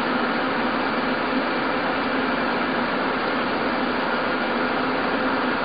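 Steady rushing ventilation noise of the International Space Station's cabin fans and life-support equipment, with a faint low hum, holding constant throughout.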